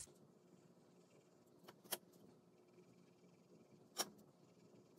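Near silence: room tone with a few faint, sharp clicks, two close together near two seconds in and a slightly louder one at about four seconds.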